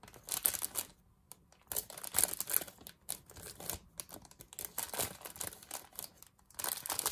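Clear plastic bag crinkling in irregular bursts as a hand rummages through it, picking out small pom-poms.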